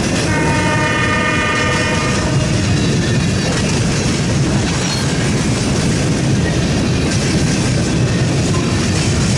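Freight train's hopper cars and boxcars rolling past with a steady rumble of steel wheels on the rails. Near the start a locomotive air horn sounds one chord held for about two seconds.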